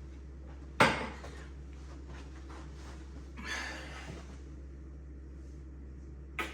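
A sharp knock about a second in, like a cupboard door or a hard object set down, then a softer rustle midway and a short click near the end, over a steady low hum.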